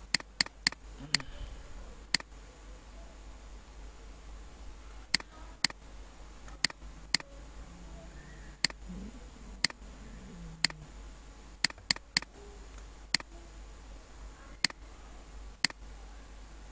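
Computer mouse clicking: about twenty sharp single clicks at uneven intervals, with a quick run of four near the start, over a low steady hum.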